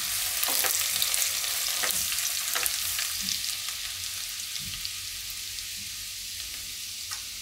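Chopped garlic, dried red chillies and curry leaves sizzling in hot oil in a wok while a silicone spatula stirs and scrapes a few times; the sizzle slowly gets quieter.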